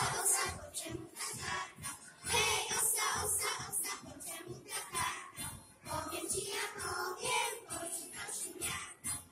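A children's folk ensemble singing a Polish folk song together in chorus, over a steady low beat.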